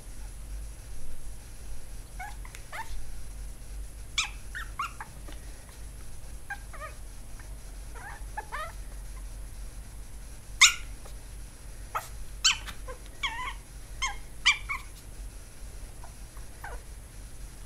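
Chihuahua puppy giving short, high yips and whimpers while it plays, many of them falling in pitch. They come scattered and irregular, with the loudest about ten seconds in.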